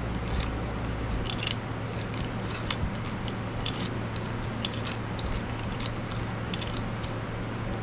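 Irregular small metal clicks and taps as bench vise parts and bolts are handled and fitted by hand, over a steady low hum.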